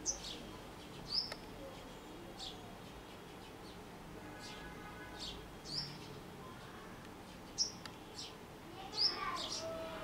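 House sparrows chirping: short, high, sharp chirps at irregular intervals, with a quick cluster of louder chirps near the end.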